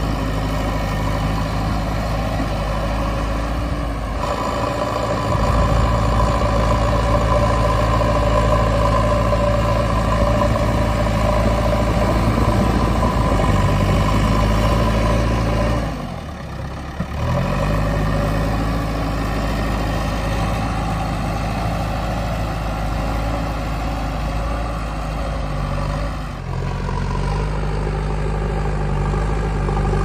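JCB 3DX backhoe loader's diesel engine running steadily as the machine works soil with its front loader bucket. The engine sound dips briefly about halfway through, and its note shifts lower a few seconds before the end.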